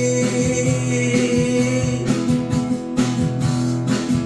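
Music: acoustic guitar strumming an accompaniment, with a last sung note held and fading out about two seconds in, after which the strummed chords carry on alone.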